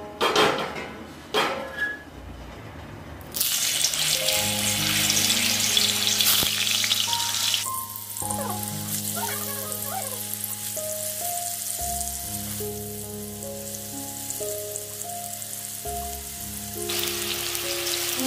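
Potato chunks frying in hot oil in a kadhai. After a few knocks, the sizzling starts suddenly about three seconds in, eases off about halfway through, and grows stronger again near the end.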